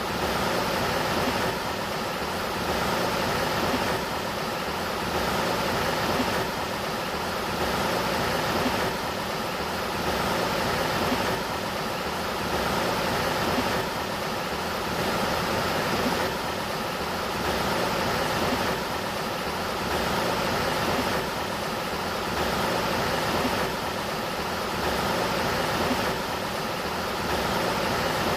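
River water rushing in a steady, dense wash of noise that swells and eases about every two and a half seconds.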